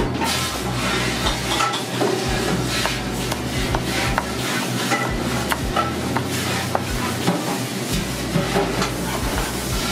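Kitchen sounds: a steady frying sizzle with scattered sharp knocks of a chef's knife on a plastic cutting board as green chillies are chopped.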